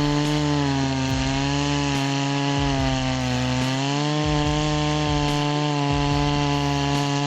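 An EFCO MT8200 chainsaw, with its 82 cc two-stroke engine, running at high speed while cutting through wood. Its pitch sags slightly under load about three seconds in and then recovers.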